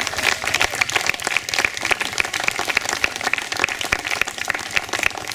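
A small crowd clapping and applauding a swimmer as she is introduced.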